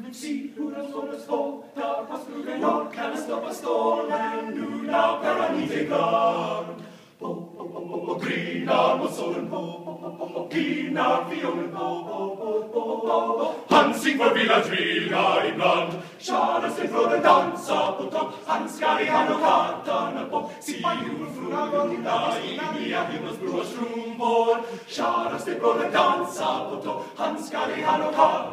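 Male a cappella group singing live, several voices in harmony with no instruments.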